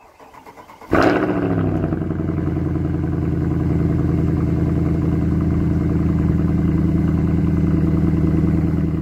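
An engine is cranked for about a second, catches with a sudden flare of revs, then drops back and settles into a steady, even idle.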